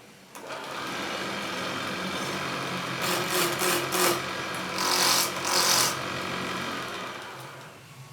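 Wood lathe motor running steadily, with a turning tool cutting into the spinning wood in two loud, hissing stretches near the middle. The motor comes in about half a second in and dies away near the end.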